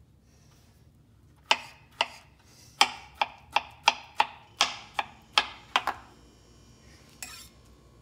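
Knife chopping grilled peaches on a cutting board: about a dozen sharp knocks, two or three a second, starting a second and a half in and stopping about six seconds in, with one more a little later.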